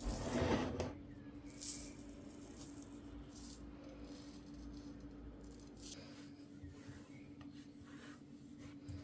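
Kitchen handling noises while baking: a brief louder rustle or scrape at the start, then light rubbing and small clicks, over a steady low hum.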